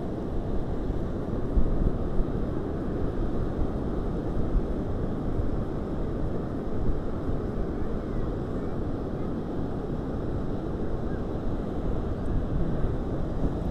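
Wind rumbling and buffeting on the microphone, with the steady wash of sea surf behind it.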